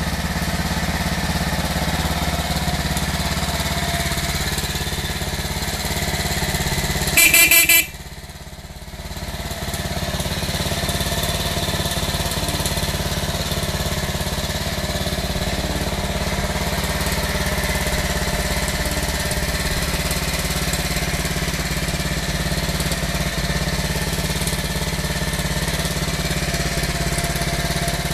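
1967 Aermacchi Harley-Davidson Sprint SS 250's horizontal single-cylinder four-stroke engine, built to take a 74 mm piston, idling steadily. About seven seconds in there is a brief loud crackle, and the sound dips for a second or two before settling back to the even idle.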